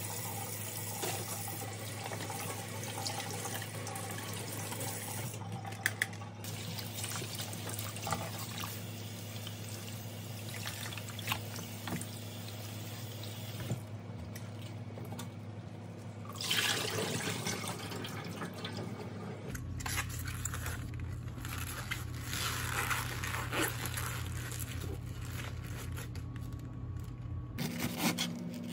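Kitchen tap running into a stainless steel sink while a plastic container is rinsed under the stream, with light handling sounds.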